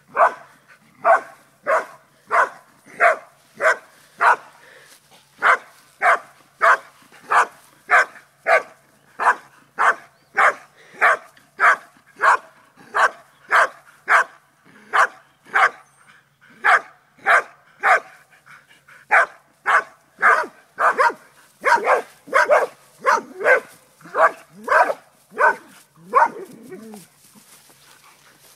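A dog barking over and over at a steady pace of about two barks a second, pausing briefly near the end.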